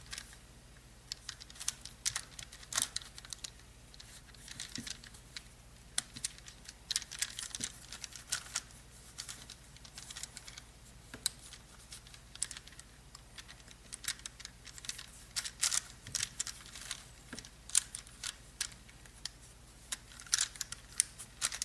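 Irregular small plastic clicks and clacks of a Professor Pyraminx twisty puzzle being handled and turned, some in quick runs, others single.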